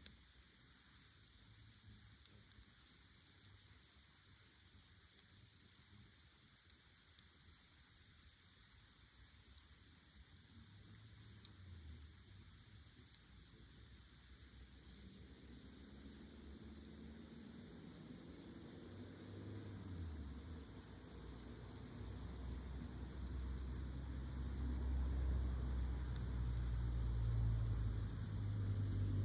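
Crickets chirring steadily on a warm summer night: one continuous high-pitched trill. A low rumble rises underneath from about halfway through.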